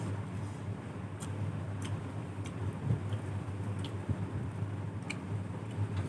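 Chewing with sharp, wet mouth clicks, about one or two a second, over a steady low hum.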